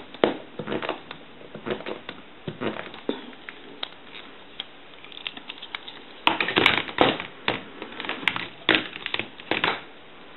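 Hands working a crimping tool and a new plug onto a telephone handset cord: irregular clicks, clatter and rustling, the clicks coming thicker and louder over the last few seconds.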